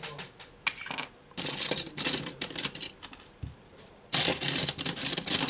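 Hand handling noise over an opened iPad: a few small clicks, then two loud stretches of crackly scraping and rustling, the second starting about four seconds in.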